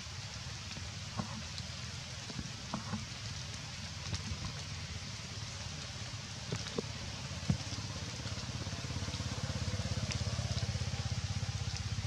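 Steady outdoor background hiss with a low rumble that grows louder in the second half, and a few scattered soft clicks.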